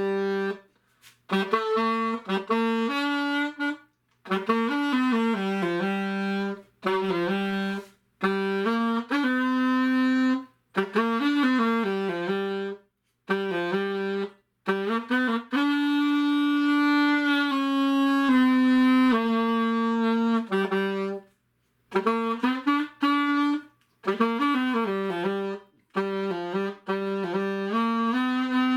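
A freshly repadded 1925 Holton alto saxophone, played through a hard rubber mouthpiece, in short halting phrases of stepping notes broken by pauses for breath. Near the middle comes one long held note.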